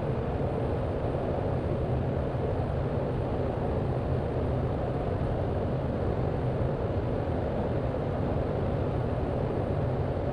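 Steady in-flight cockpit drone of a Cessna 208B Grand Caravan's PT6A turboprop engine and propeller, low and even throughout, with a faint thin high whine over it.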